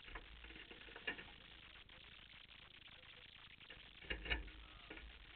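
Faint clicks and knocks of handling over low background noise, with a short cluster of knocks and a low thump about four seconds in.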